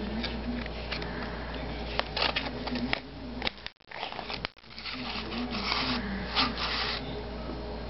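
Clear plastic blister packaging crackling and clicking as it is handled and a small flashlight is worked out of it, with a denser stretch of crackling a little after the middle. The sound drops out briefly just before the middle, and a steady low hum runs underneath.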